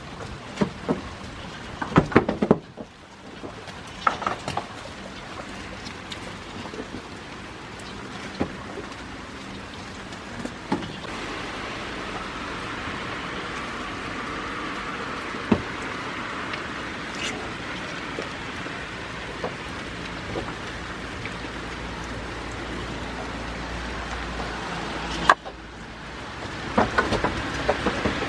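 Steady rain, with scattered crunches and knocks from goats chewing watermelon close by.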